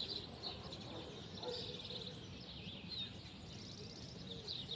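Several small birds chirping and singing rapid trills, over a steady low rumble of background noise.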